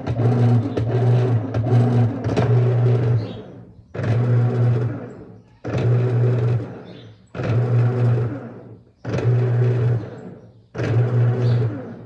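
Top-load washing machine agitating: the drive motor hums steadily at first. From about four seconds in it runs stroke by stroke, each stroke starting sharply and dying away as the agitator coasts, roughly every second and a half to two seconds.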